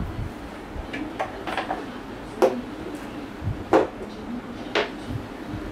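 Sharp clicks and knocks of a plastic folding table's steel legs and wire leg braces being handled and snapped against the plastic underside of the tabletop, five or six separate clicks, the loudest about two and a half and nearly four seconds in.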